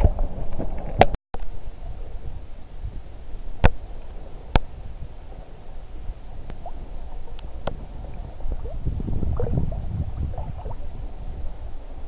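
Sea water sloshing and gurgling close to the microphone, over a low rumble, with a few sharp clicks scattered through. The sound drops out completely for a moment just after a second in.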